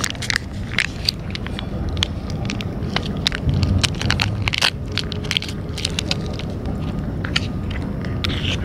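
Cats eating wet food from a metal bowl close up: irregular chewing clicks and crunches, with teeth and tongues ticking against the bowl, over a low steady rumble.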